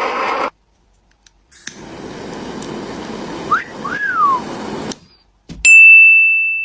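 Edited sound effects. A hissing stretch carries a wolf whistle, a quick rising note followed by one that rises and falls. Then, after a click, comes a loud, high single beep that fades away.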